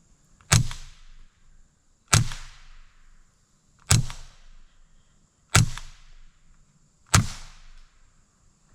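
Five suppressed .22 LR shots of CCI Subsonic ammunition from a Winchester Wildcat semi-automatic rifle with a SilencerCo Sparrow 22 suppressor, fired at an even pace about a second and a half apart. Each is a short, sharp crack with a brief fading tail, and the shots are a lot quieter than with standard-velocity rounds.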